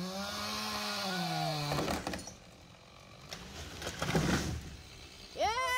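A chainsaw running and sagging in pitch in a cut, then stopping, followed by crackling and cracking of wood as a tree is felled.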